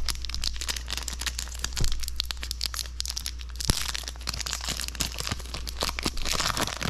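Foil trading-card booster pack wrapper crinkling and tearing as it is ripped open by hand, with dense crackling throughout and louder rips about three and six seconds in.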